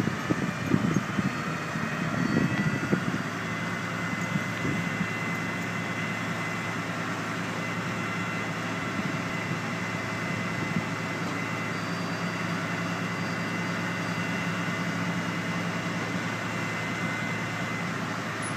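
Truck-mounted hydraulic crane's engine running steadily while the crane hoists a precast concrete section: a low even hum with a thin steady high whine over it. The low end is louder and uneven for the first few seconds.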